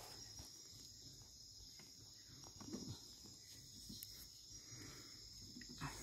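Faint, steady chorus of night insects such as crickets, with a few soft scuffs of hands working in loose soil.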